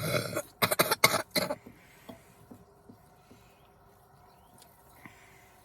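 A person's breath and throat noises while chugging soda: a short rush, then about four quick, loud bursts within the first second and a half.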